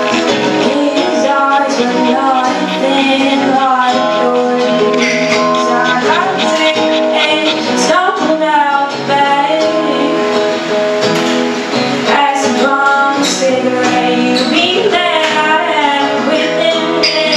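Live acoustic performance: women singing over two strummed acoustic guitars, the voice gliding between notes.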